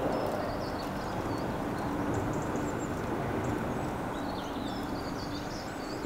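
Fixed-spool spinning reel cranked steadily as a pike lure is retrieved, a steady whirr.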